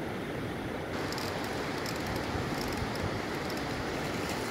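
River water rushing steadily, with scattered light crackles starting about a second in.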